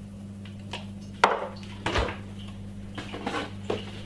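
A few short clinks and knocks of kitchen utensils and containers being handled and set down, the loudest about a second in, over a steady low hum.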